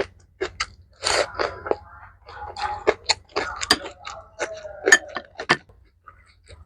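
Close-miked eating of mixed rice with kimchi and fried egg: chewing with wet mouth clicks and small crunches, mixed with a few scrapes and brief pitched squeaks.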